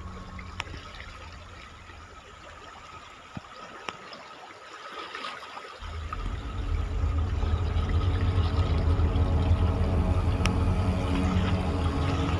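Water running and trickling, over a low rumble that drops away for a couple of seconds near the middle and returns louder about six seconds in.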